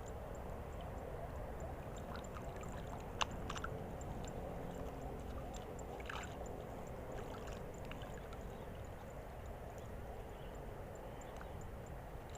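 Steady noise of moving water at the water's edge. There is a sharp click about three seconds in, a few lighter clicks after it, and a faint, regular high ticking throughout.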